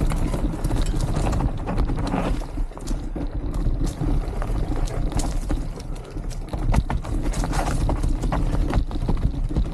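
Wind buffeting the microphone over a steady low rumble, with irregular footfalls and knocks on a rocky trail during a descent.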